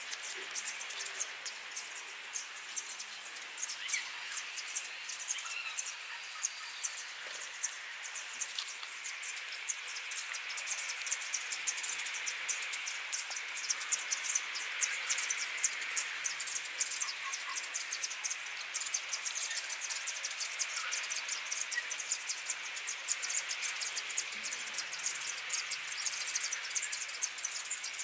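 Insects chirping in a dense, steady chorus of rapid high ticks.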